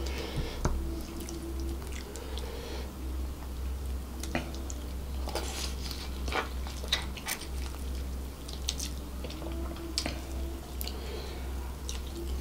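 A person biting into and chewing a piece of sauce-coated devil chicken close to the microphone: wet chewing and mouth smacks with many scattered sharp clicks.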